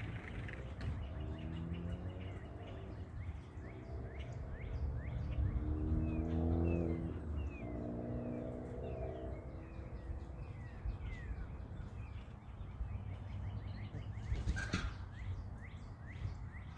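Small birds chirping outdoors, many short quick falling chirps, over a steady low rumble. A low droning tone swells and fades about four times, loudest a little before halfway through.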